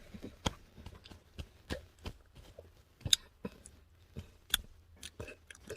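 Irregular soft clicks and ticks, a few each second, with two sharper, louder clicks about three seconds and four and a half seconds in.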